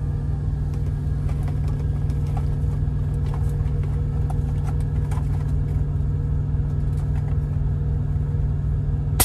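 Steady drone of an idling diesel truck engine heard inside the semi-truck cab, with a few faint clicks and knocks.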